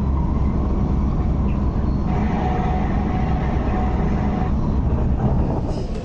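MTR Tuen Ma Line C-train heard from inside the car, running along the track: a steady low rumble from the wheels and running gear, with a whining tone from the traction equipment that comes up for a couple of seconds in the middle. The level drops a little near the end.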